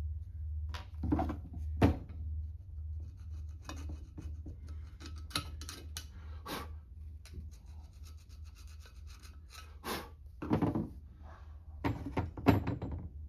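Small carburetor parts being handled, rubbed and set down while the carburetor is being taken apart: scattered clicks, taps and scraping, with sharper knocks about two seconds in and again near the end. A steady low hum runs underneath.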